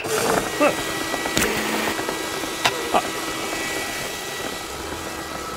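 Canister vacuum cleaner switched on and running steadily: a loud, even rush of air with a faint steady hum. A few short vocal noises sound over it.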